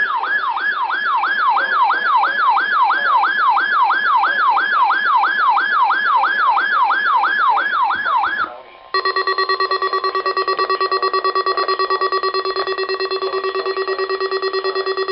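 Weather radios sounding a test alert. First comes a warbling siren-style alarm that sweeps up and down about two and a half times a second. After a brief break, the NOAA Weather Radio alert tone sounds steadily together with a fast pulsing alarm, and it cuts off near the end.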